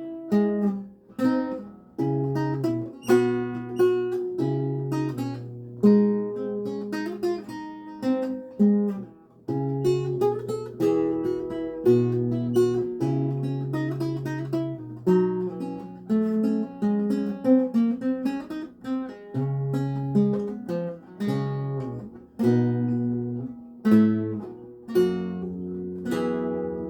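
A 7-course Renaissance lute played solo: plucked notes and chords, each dying away quickly, with bass notes under a moving melody. It is tuned to A=415 Hz.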